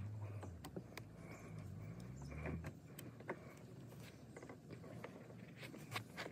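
Faint, scattered clicks and small knocks of a Baja 90 ATV carburetor being wiggled and pushed onto its tight-fitting mount on the engine.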